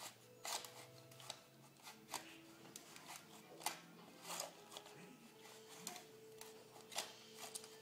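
Faint scattered clicks and light rustling, like small objects being handled, over faint background music.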